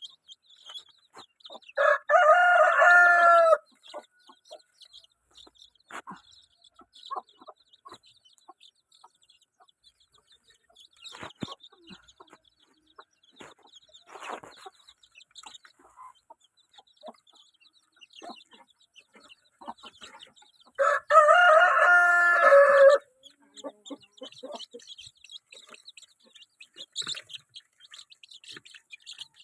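Indonesian native village chicken (ayam kampung) rooster crowing twice, once about two seconds in and again about twenty seconds later, each crow lasting under two seconds. Faint clucks and chirps come between the crows.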